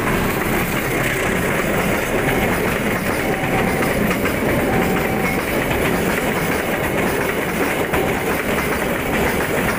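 Train of empty Pertamina fuel tank wagons rolling past close by: a steady clatter of steel wheels running over the rails.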